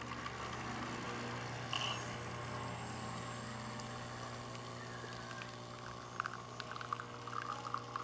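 Nespresso capsule machine brewing an espresso: its pump hums steadily while coffee streams into a glass, with a short hiss about two seconds in and crackly spattering from about six seconds in.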